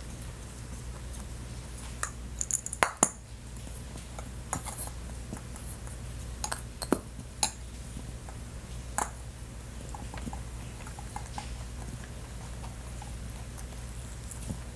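Hard plastic treat containers and toy eggs clicking and clinking against a ceramic egg carton as a rabbit noses and tugs at them: scattered light knocks, the loudest cluster about two to three seconds in, over a steady low hum.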